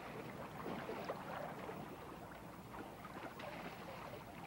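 Water splashing and sloshing as soldiers wade through a shallow river.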